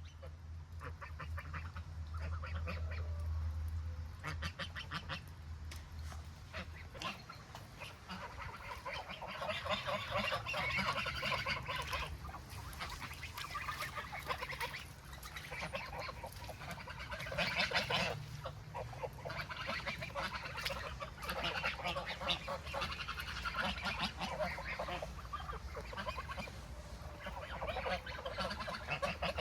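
A flock of domestic ducks and geese calling, with quacks and honks overlapping continuously and getting busier after the first several seconds. A low steady hum underlies the opening seconds, then fades.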